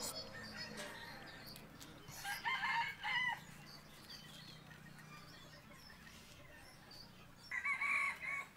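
Rooster crowing twice: once about two seconds in and again near the end, each crow lasting about a second.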